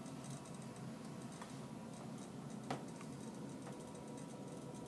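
Low steady hum with scattered faint ticks and one sharper click about two and a half seconds in.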